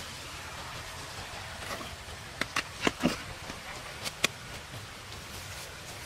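A large stone being shifted and settled into place on dirt and rock: a few sharp knocks and scrapes of stone and grit partway through, over a steady outdoor hiss.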